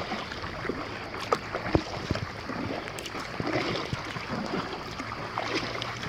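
Sea water lapping and trickling against a stand-up paddleboard as it is paddled across calm water, with a few small splashes and knocks.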